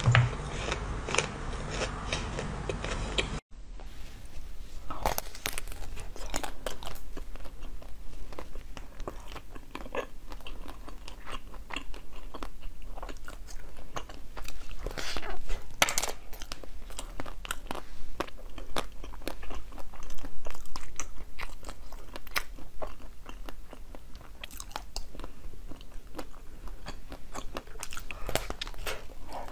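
Close-miked biting and crunching of hard frozen ice treats: sharp cracks as bites snap off pieces, then chewing of the crushed ice. The recording changes abruptly about three and a half seconds in, when the treat changes.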